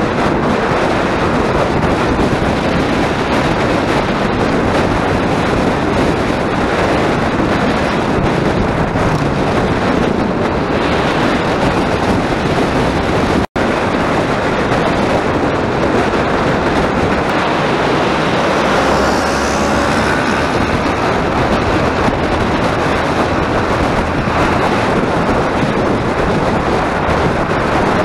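Steady wind noise over the microphone, with a motorcycle's engine running underneath, while riding along at road speed. The sound cuts out for an instant about halfway through.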